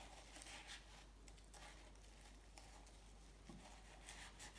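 Faint scrubbing of a bicycle bottom bracket cup, short rubbing strokes working deposit off the metal, a little quicker near the end.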